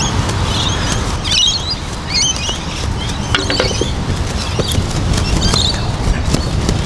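Wind buffeting the microphone as a steady low rumble, with birds chirping and twittering over it several times and a few light clicks.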